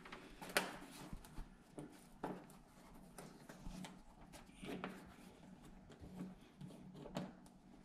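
Faint, scattered clicks and taps of hands working a screw loose at the lower fender edge of a car overhead, a few separate small knocks over several seconds.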